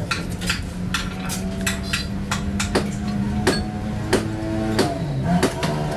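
Hammer striking sheet metal: a dozen or more sharp, ringing blows at an uneven pace, over a steady low hum.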